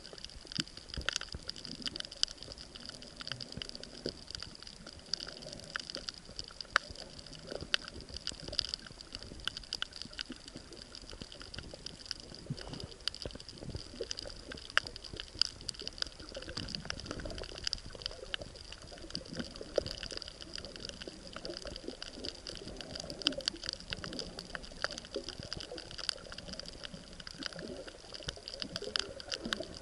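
Underwater reef ambience heard through a submerged camera: a steady crackle of many small clicks over a low, shifting wash of moving water and a steady high hiss.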